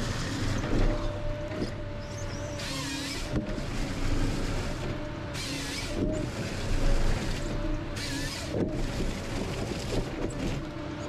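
Ponsse Scorpion King forest harvester running steadily with a constant hydraulic hum, broken every two to three seconds by a short hissing surge as the harvester head works a stem.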